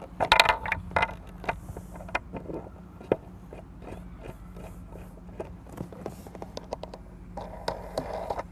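A motor mount board being fitted onto the rear yoke bolts of an inflatable catamaran kayak: a flurry of knocks and scrapes in the first second, then scattered small clicks of the hardware, and a short scrape near the end, over a steady low hum.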